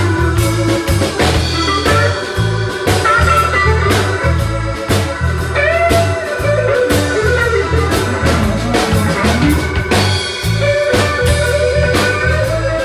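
Live blues-rock band playing an instrumental passage: an electric guitar lead with bending notes over a steady drum beat, bass guitar and keyboard.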